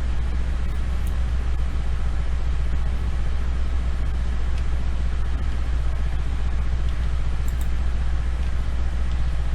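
Steady low hum of background room or microphone noise, with a few faint clicks.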